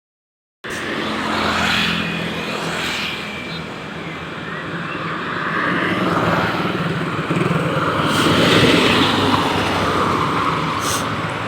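Road traffic with a large vehicle's engine running close by, swelling louder in the second half, after a brief silence at the start.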